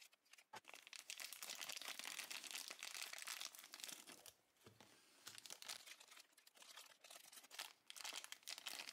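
Small clear plastic bags crinkling softly as they are cut open and the toy figures are pulled out, in two spells with a short lull in the middle.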